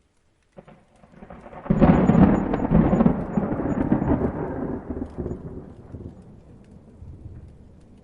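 A thunderclap: a faint first rumble, then a loud crack about two seconds in that rolls on as deep rumbling and slowly fades away over several seconds.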